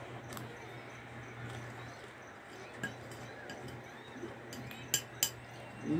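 A metal spoon clinking against a glass bowl of farofa, a few sharp clinks that are loudest and closest together about five seconds in, over a low steady hum.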